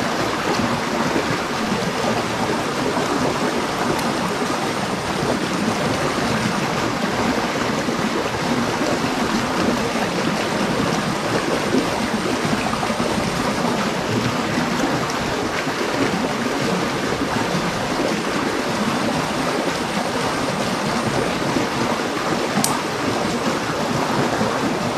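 Steady rush of a small stream pouring over rocks.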